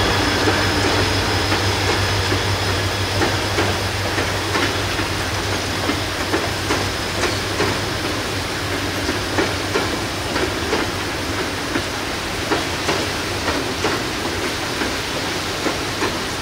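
Freight train of covered hopper cars and container flatcars rolling past, its wheels knocking irregularly over rail joints against a steady rushing noise. A low hum dies away in the first couple of seconds.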